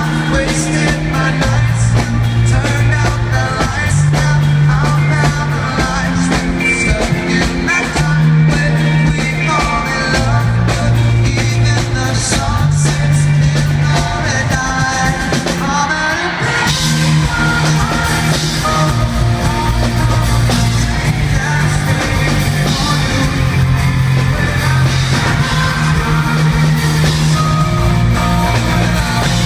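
Live rock band with a male lead singer on a handheld microphone, electric guitar, bass and drums, loud and recorded from the audience. The sound fills out with more top end about halfway through.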